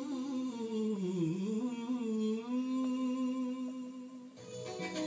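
Title theme music played through a television speaker: a sustained hummed vocal line that dips and bends slowly in pitch, joined near the end by strummed guitar.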